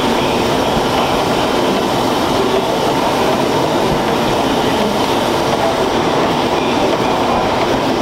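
Stationary steam engines running, among them a walking-beam steam engine with a spinning flywheel, giving a loud, steady mechanical clatter with no single beat standing out.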